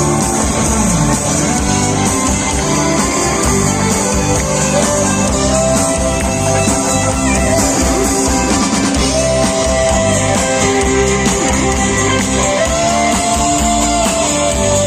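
Rock band playing an instrumental break, guitars over a steady beat, with a lead melody holding long drawn-out notes.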